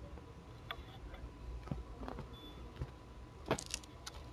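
A few light clicks and taps against a quiet room hum, with a small cluster of them near the end.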